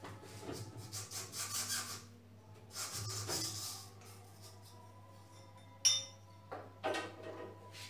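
Hands working a rubber V-belt and pulley off a lathe countershaft: two stretches of rubbing and scraping, then a sharp metal clink with brief ringing about six seconds in and a couple of knocks near the end, over a steady low hum.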